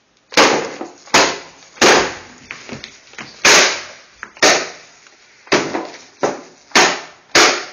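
Rolled-up magazine slapping hard and repeatedly, swatting at a wasp: about nine sharp smacks, roughly one a second and unevenly spaced.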